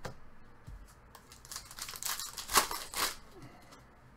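A light knock, then a trading-card pack wrapper crinkling and tearing in the hands for about a second and a half, loudest a little past the middle.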